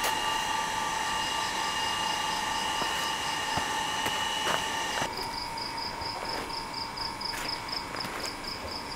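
A steady high hum with overtones cuts off suddenly about five seconds in. After that an insect chirps in rapid high pulses, about five a second, over a few soft knocks.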